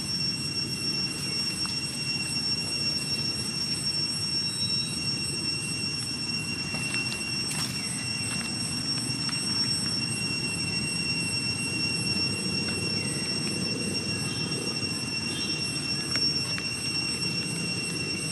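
Steady outdoor background noise: an even low rumble with a constant high-pitched whine over it and a few faint chirps.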